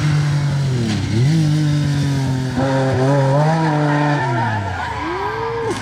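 MG Metro 6R4 Group B rally car's 3.0-litre V6 engine running hard at high revs. Its note dips and climbs again about a second in, then falls away about four seconds in, with tyres squealing in between.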